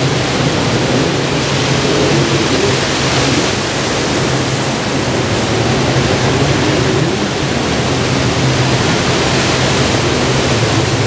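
Ocean surf washing onto the beach: a loud, steady rush, with a low steady hum that comes and goes underneath.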